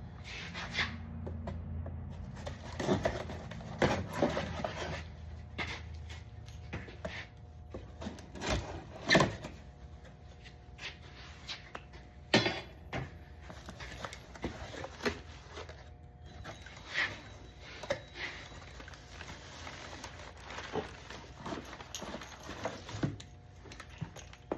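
An Amazon package being handled and unpacked: irregular knocks, clicks, rubbing and rustling, with two sharper knocks about nine and twelve seconds in.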